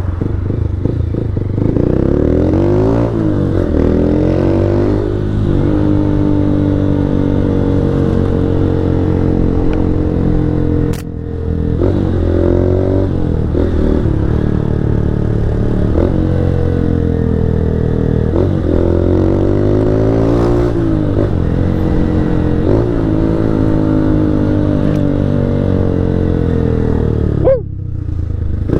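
A 160 cc motorcycle engine running under way. Its pitch climbs and falls again and again as the rider accelerates and shifts gears, and it briefly goes quieter about eleven seconds in and again near the end.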